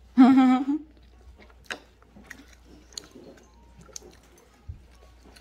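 A child chewing a mouthful of rice and boiled pork, with soft mouth noises and small scattered clicks. The loudest thing is a short hummed voice sound just after the start.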